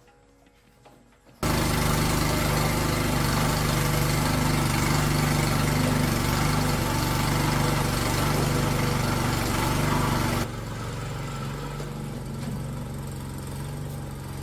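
Small gasoline engine of the restored plow machine running steadily at a high, even speed, coming in abruptly a second or so in. About nine seconds later it drops to a quieter, lower-speed run.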